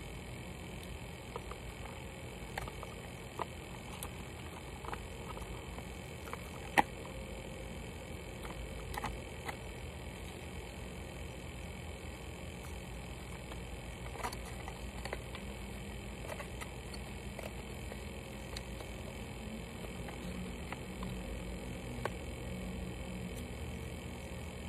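Scattered soft clicks and taps from handling a phone's cardboard box and packaging, with one sharper click about seven seconds in, over a steady low background hum.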